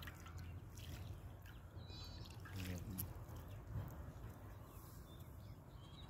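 Faint open-air background: a low steady rumble with a few soft clicks, a brief chirping bird call about two seconds in, and a faint murmured voice just before three seconds.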